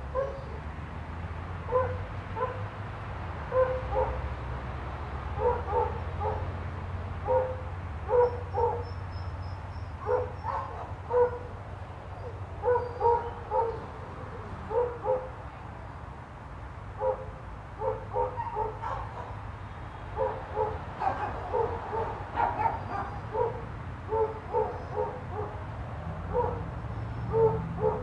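A dog barking over and over in short, yippy barks, often two or three in quick succession, with brief pauses between runs.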